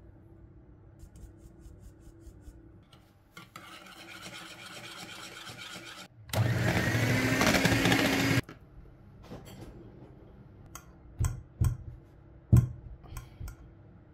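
Electric hand mixer running for about two seconds, its wire beaters whipping chocolate cake batter in a wooden bowl, then cutting off suddenly. Before it come a few seconds of soft rubbing and rustling. After it come several sharp knocks and clacks.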